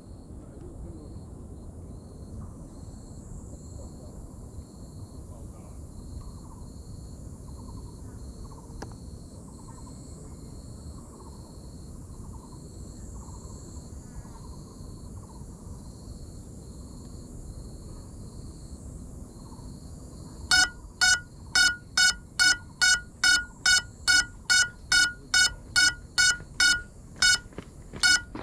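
Lost-model buzzer on a crashed FPV quadcopter beeping steadily, about two loud, high beeps a second, starting about two-thirds of the way through. Before it, only steady outdoor background with faint, regularly repeated chirps.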